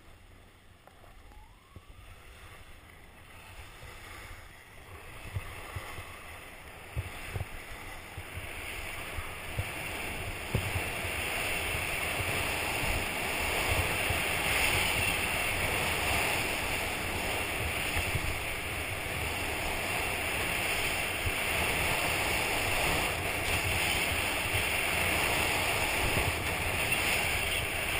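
Wind rushing over the action camera's microphone, with low buffeting gusts, and skis hissing over packed groomed snow on a downhill run. It grows louder over the first dozen seconds as speed builds, then holds as a steady rush.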